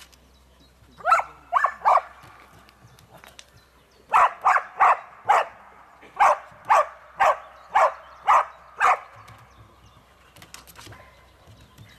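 A dog barking in sharp, loud single barks: three in quick succession, a pause, then a run of about ten more at roughly two a second before it stops.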